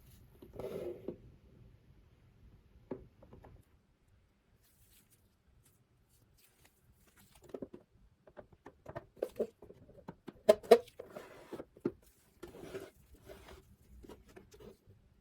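Close-up handling noises: small clicks, snips and rustles of hands working with small parts and tools, with a soft rustle near the start, a silent pause, then a busy run of clicks from about halfway.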